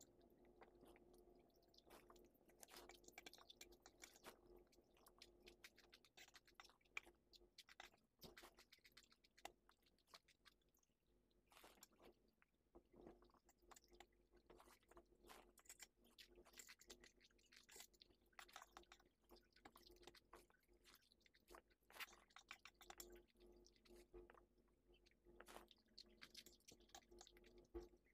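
Faint close-up chewing of noodles, with many small clicks and scrapes of a metal fork against a steel plate.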